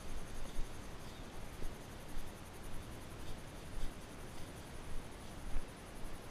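Horse walking through tall grass, heard from the saddle: soft rustling and dull thuds roughly once a second over a steady hiss.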